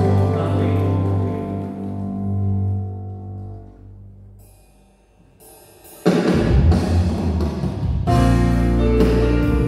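Live worship band playing: electric guitar, bass guitar, keyboards and drum kit. A held chord fades almost to silence, then about six seconds in the full band comes back in loudly with drums and bass.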